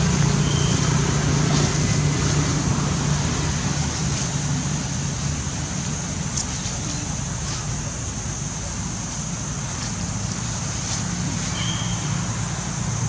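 A steady engine hum with road-traffic noise. The low drone weakens a few seconds in and returns near the end, over a constant high hiss.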